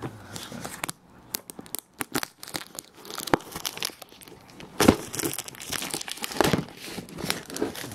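Plastic shrink-wrap being torn and peeled off a model kit box, crinkling in many irregular sharp crackles.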